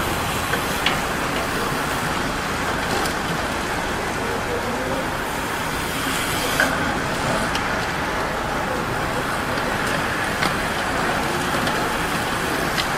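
Steady rushing noise of a line of road racing bicycles passing through a corner, their tyres and drivetrains on the paved street, with a few faint clicks.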